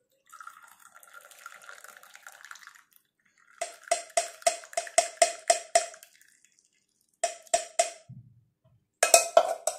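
Masala chai poured from a pan through a strainer into small glasses, a hissing trickle of liquid. About three and a half seconds in, a run of ringing metal clinks follows, about three a second, and a few more come near the end.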